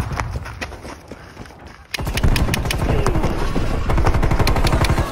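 Automatic gunfire in the manner of a video-game sound effect. A few scattered sharp shots come first, then about two seconds in a rapid machine-gun burst starts and runs until it cuts off suddenly.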